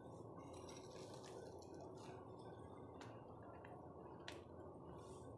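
Near silence: faint steady room hiss with a few soft, short clicks.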